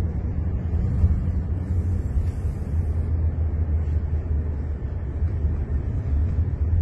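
Steady low road and tyre rumble inside the cabin of a moving Jaguar I-Pace electric car, with no engine note.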